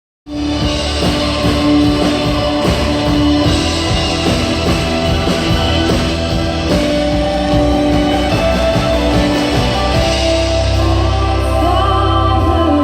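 Live worship band playing a rock-style song with guitar, bass and a steady drum beat; the bass grows heavier and singing comes in near the end.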